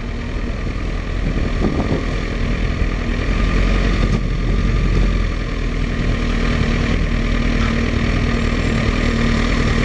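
Kawasaki ZX-10R's inline-four engine running at low revs while crawling in stop-and-go traffic, with a steady hum. The engine is overheating because its radiator fan is not kicking in.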